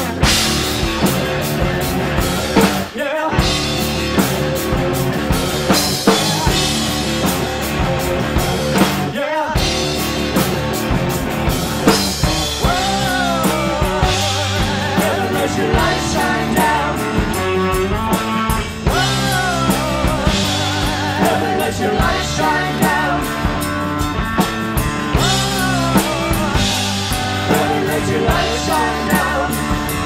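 Live rock band playing electric guitars and a drum kit, instrumental for the first dozen seconds or so, then with a sung lead vocal over it.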